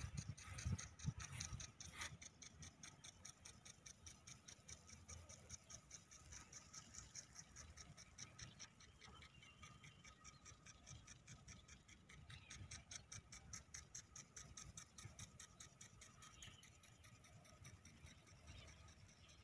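Faint, even ticking, about three to four ticks a second, from a sprinkler watering the grass pitch.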